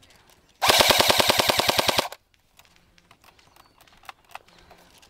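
Airsoft gun firing one full-auto burst of about a second and a half, a rapid even rattle of roughly eleven shots a second.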